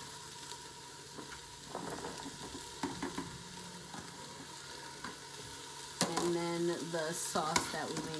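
Food frying in hot oil with a steady sizzle, and a few light knocks as chopped vegetables are tipped into a steel pot.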